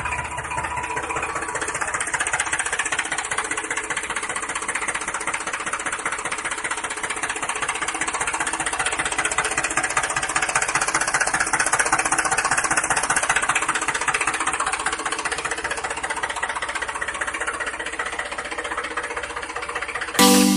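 Small electric gear motor of a homemade model tractor running steadily with a rapid, even buzz.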